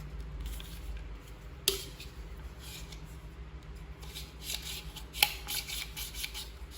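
Plastic parts and packaging being handled during an unboxing: rustling, with two sharp clicks, one near the start and a louder one past the middle.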